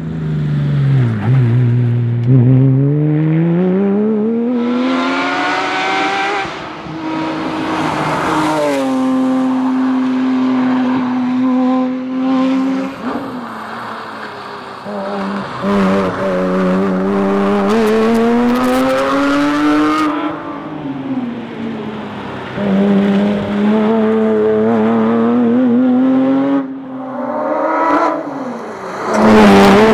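Porsche Cayman S engine driven hard on a rally stage, rising in pitch again and again as it revs up through the gears, with sudden drops at the shifts and lower stretches between.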